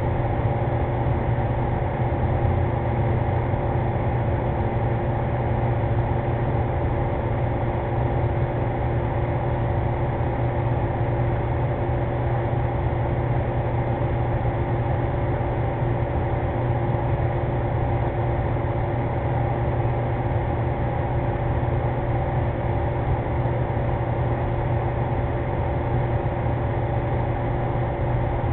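Steady machine hum with a low drone and several constant tones, unchanging throughout.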